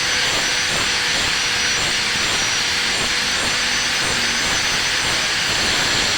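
Electric arc welding: the steady hiss of the welding arc burning.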